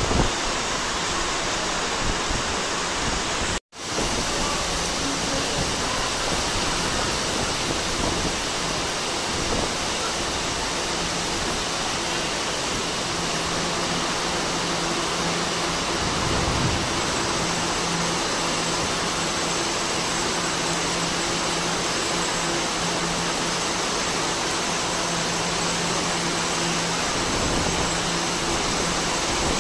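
Steady rush of heavy rain at the station, with the low hum of a stationary TRA EMU700 electric multiple unit coming and going from about 13 seconds in. The sound cuts out for a split second just under four seconds in.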